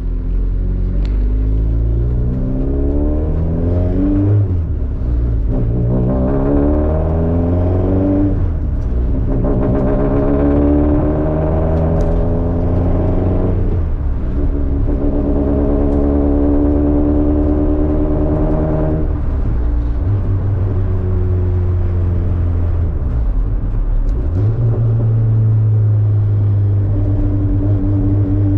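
Honda D-series four-cylinder engine accelerating through three gears, its pitch climbing in each with brief breaks for the shifts, then settling to a steady drone near the end.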